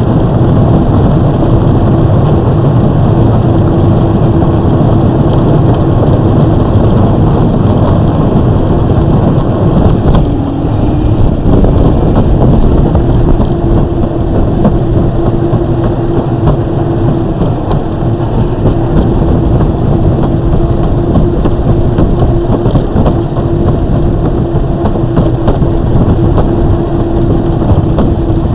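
Battery-electric Power Wheels ride-on toy car driving: a steady whine from its drive motor and gearbox over a loud rumble of its hard plastic wheels rolling. The whine dips in pitch briefly about ten seconds in, then holds steady again.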